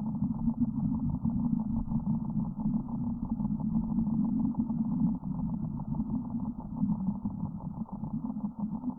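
Radio output scrambled by interference from a nearby mobile phone: a steady, low, rough drone with a fast flutter, muffled, with nothing high-pitched in it.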